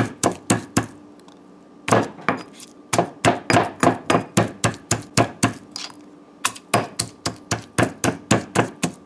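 Stone pestle pounding garlic cloves in a heavy stone mortar: a quick run of knocks, about four a second, with short pauses about a second in and again about six seconds in.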